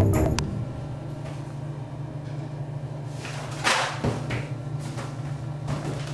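Toilet paper roll batted by hand so it spins and rattles on its wall holder, the paper rustling as it unrolls, loudest about three and a half seconds in, over a steady low hum. A snatch of music cuts off at the very start.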